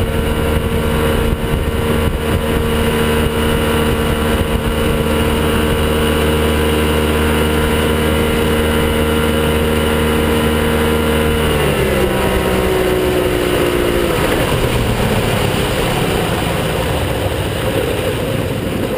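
Evinrude outboard motor running steadily at speed over rushing wake water. About twelve seconds in, its note slides down as it is throttled back, and the water noise takes over.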